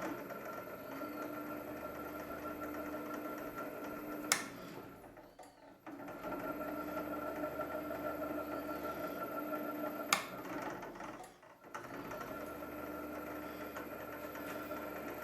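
Bench drill's motor running on a variable-frequency drive, a steady hum with a high electronic whine. A switch clicks about four seconds in and again about ten seconds in; each time the motor runs down almost to a stop and then starts up again, as the drive reverses its direction.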